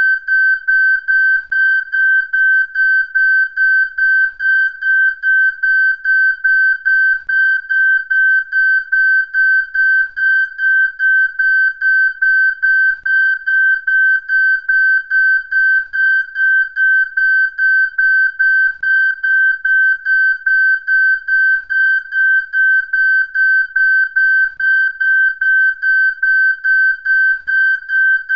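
A high electronic beep at one fixed pitch, repeating rapidly and evenly without a break.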